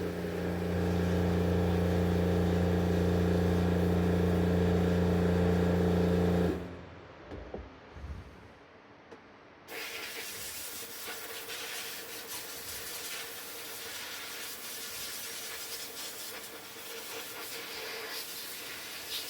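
A loud, steady machine hum that cuts off after about six and a half seconds. After a short lull, a steady spraying hiss starts about ten seconds in and runs on.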